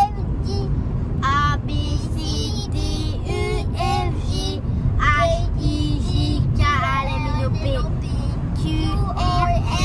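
Young children singing in a moving car, over the steady low rumble of road noise.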